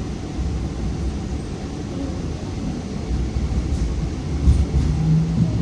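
Hong Kong MTR Light Rail car running along the track, heard from inside the car: a steady low rumble of wheels on rail that grows a little louder near the end.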